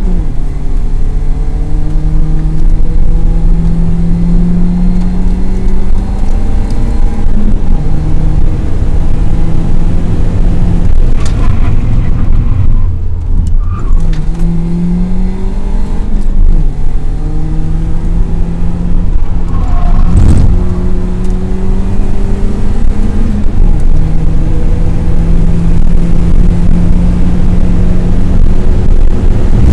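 A BMW race car's engine, heard from inside the cabin, pulling hard under load with steady road and wind noise. The engine note climbs slowly through each gear and drops at the gear changes several times. It falls away for a couple of seconds around twelve seconds in, then builds again, with a single knock about twenty seconds in.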